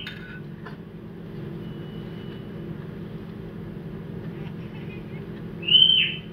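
Steady low hum, with one short high-pitched animal call that falls in pitch about five and a half seconds in.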